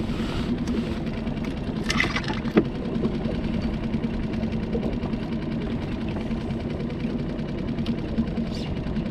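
Outboard motor running steadily at idle, a low even hum. There is a single sharp knock about two and a half seconds in.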